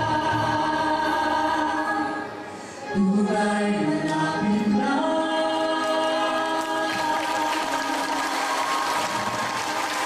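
A choir singing with musical accompaniment, holding long chords. The sound dips briefly about two and a half seconds in, then swells back.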